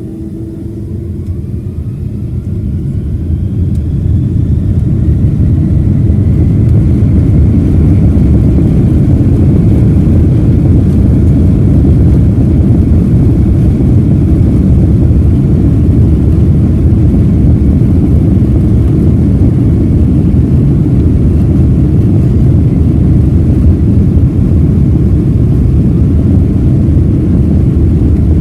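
Boeing 767's twin jet engines spooling up to takeoff power: a rising whine and a swelling rumble over the first few seconds, then a steady loud roar.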